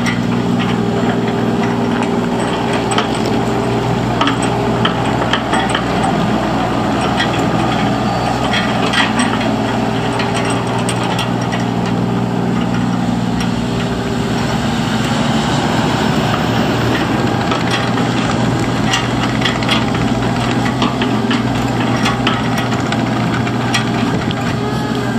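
Kubota KX91-3 mini excavator's 28 hp Kubota diesel engine running steadily while the machine travels on its rubber tracks over gravel, with scattered clicks and clatter from the undercarriage.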